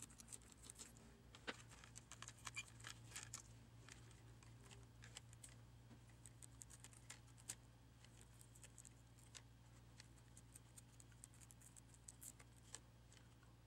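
Near silence, with faint scattered clicks and scratches from fingers working the edge of a plastic laptop screen bezel and peeling old adhesive tape off it, over a low steady hum.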